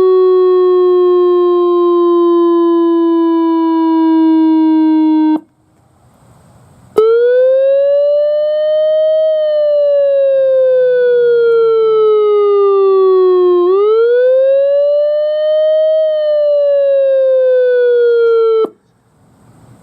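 ACA Alertronic AL-100 electronic outdoor warning siren. A slowly falling tone that pulses in loudness cuts off about five seconds in. After a short pause the siren starts a wail, rising and falling slowly twice before stopping abruptly near the end.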